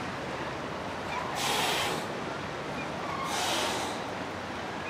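Choppy river water sloshing and splashing against the shore, with a whooshing surge about every two seconds over a steady wash of water and wind noise.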